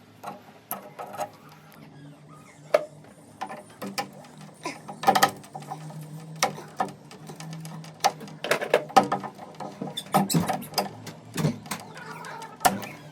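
Chisel working wood: irregular sharp taps, clicks and scrapes in uneven clusters, over a low steady hum.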